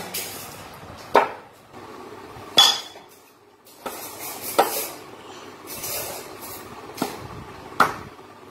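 Heavy knife chopping raw green mangoes on a wooden block: about five sharp knocking chops at uneven intervals, the blade striking through the fruit into the wood.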